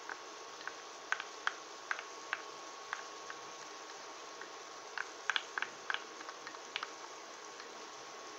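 Curly endive and coconut milk cooking in a hot stainless pan: small irregular pops and crackles, with a cluster about five seconds in, over a faint steady hiss and a thin steady whine.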